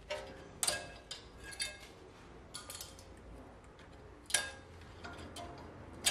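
Irregular sharp metallic clicks and clinks of hand tools and steel brake parts being handled at a car's rear brake disc and caliper carrier, the loudest about four seconds in.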